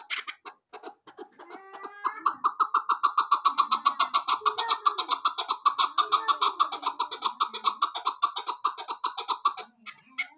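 Chukar partridge calling: a few scattered notes, then from about two seconds in a fast, steady run of repeated chuk notes that stops shortly before the end.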